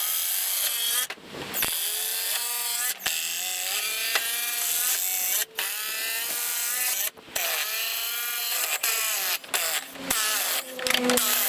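Two Makita brushless cordless impact drivers, one subcompact and one full-size, hammering long galvanized 14-gauge batten screws into pine. The rattling whine wavers in pitch under load and stops and starts several times as screws are driven home and backed out.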